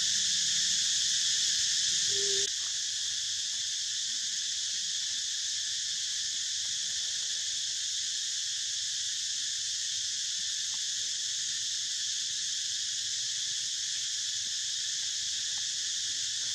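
A steady, high-pitched chorus of insects, droning on without a break.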